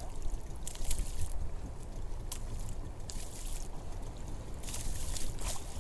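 Sea water splashing and sloshing against the side of a small open fishing boat in choppy water, in several short hissing surges over a steady low rumble.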